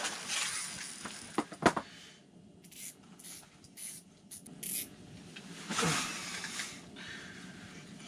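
Fishing reel's drag giving out line in a series of short, high-pitched spurts after a few sharp clicks, the sign of a fish taking the lure. Near the end comes a low groan that falls in pitch.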